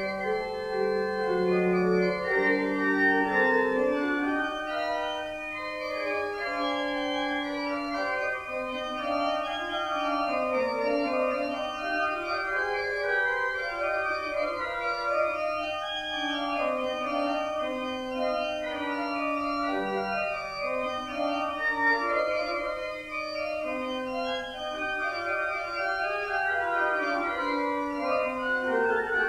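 Organ playing an offertory hymn tune in slow, held chords, with no singing.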